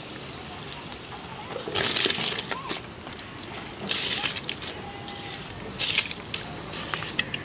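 Handfuls of soaked, drained rice scooped up and dropped into a pot of boiling water. Three short splashing, grainy rushes come about two seconds apart.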